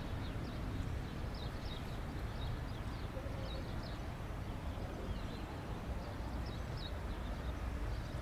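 Small birds chirping in short, quick, falling notes, repeated throughout, over a steady low outdoor rumble.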